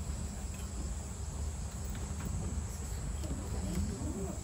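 Insects trilling steadily in one continuous high drone, over a low outdoor rumble.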